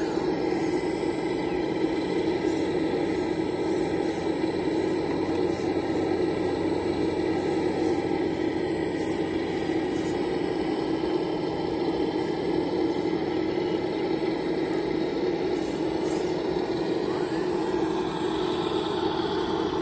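Radio-controlled scale Kobelco SK200 hydraulic excavator running, a steady mechanical hum that holds one pitch throughout while the machine works its boom and bucket.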